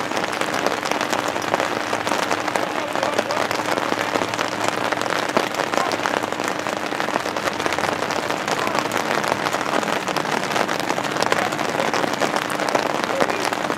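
Steady rain falling, an even hiss with a dense patter of drops.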